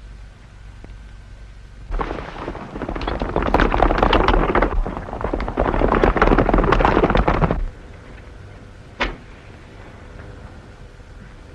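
Horses galloping: a dense clatter of hoofbeats starts about two seconds in and lasts some six seconds before cutting off, over the hum and hiss of an old film soundtrack. Near the end comes one brief scratch.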